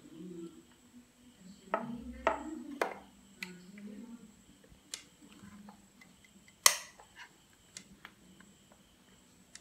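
Plastic lid of an Ikon electric sandwich maker closed down over the sandwiches and its latch snapped shut: a few separate sharp clicks and knocks, the loudest about seven seconds in.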